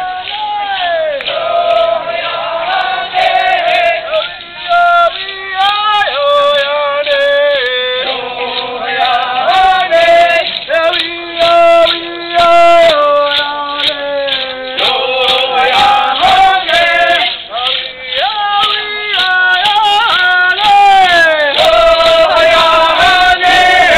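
Voices singing a Native American stomp dance chant, a man's voice leading and other voices joining, over a steady quick beat.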